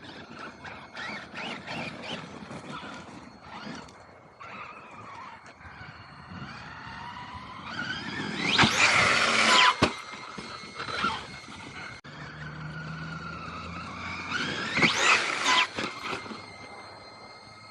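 Electric RC car being driven, its motor whine rising as it speeds up. It peaks in two loud bursts of high whine and tyre squeal, one a little before halfway and one about five-sixths of the way through.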